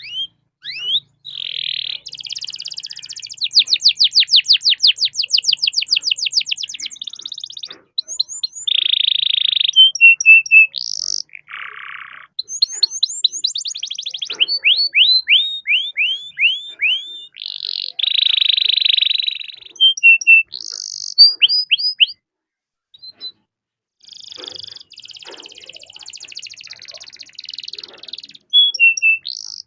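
Domestic canary singing a long, varied song of fast trills and long rolls, mixed with runs of quick sweeping chirps. It pauses briefly twice.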